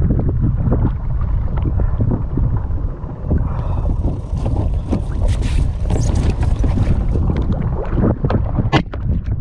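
Wind buffeting the microphone over water splashing against the side of an inflatable boat, with a longer burst of splashing in the middle and a few sharp knocks near the end.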